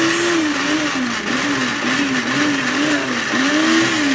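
Electric pressure cooker venting steam: a loud, steady hiss with a low whistle that wavers slowly up and down in pitch.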